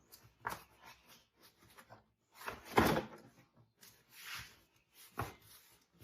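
Cargo-floor pieces of a Tesla Model Y's rear trunk being laid back into place: a series of knocks and clunks, the loudest near the middle.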